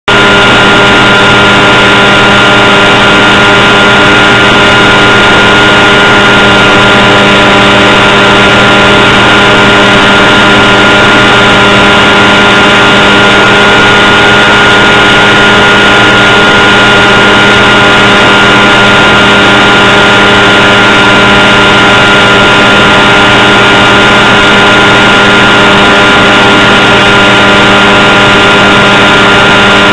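Electric motor and propeller of a radio-controlled model plane, heard from its onboard camera, running steadily at one pitch in cruise.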